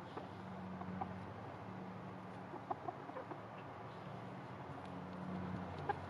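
Silkie and cochin bantam chickens giving a handful of short, soft clucks, scattered irregularly, over a low, steady hum.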